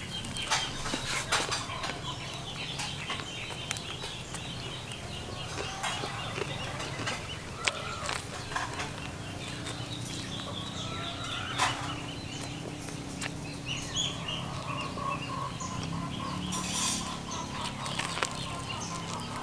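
Chickens clucking now and then in the background, while close by a person bites into and chews a crusty baguette sandwich, with scattered short crunching clicks.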